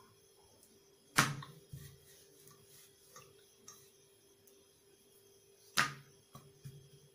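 Hands pressing and spreading stuffed paratha dough on a granite rolling board, with two sharp knocks, about a second in and near the end, and a few fainter taps between.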